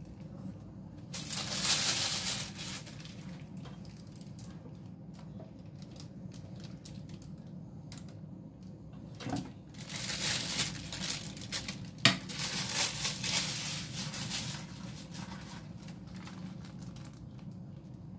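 Plastic piping bag crinkling and rustling as it is handled and squeezed, in two spells: a short one near the start and a longer one of about five seconds in the second half, with one sharp click partway through the longer spell.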